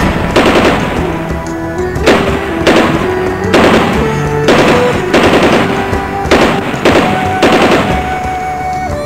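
A run of gunshots, sharp single cracks coming about one or two a second, over background music with held notes.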